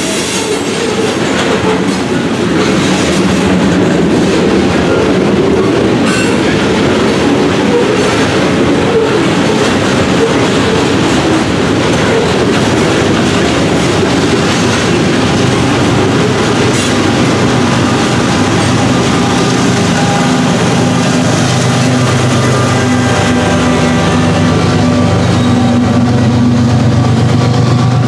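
Loaded coal hopper cars rolling past with wheels clacking over rail joints and some squeal. About halfway through, the steady drone of a BNSF ES44AC distributed-power diesel locomotive comes in under the wheel noise and is loudest near the end as it passes.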